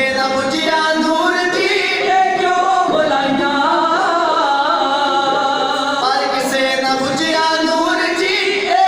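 Sikh devotional hymn singing (kirtan), with sustained sung lines.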